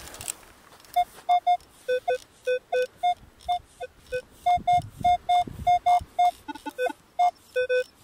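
Minelab Equinox 600 metal detector beeping as its coil sweeps over a dug hole: a quick run of short beeps in two pitches, higher and lower, about three a second. The target is still in the sand; the hole has not been dug deep enough.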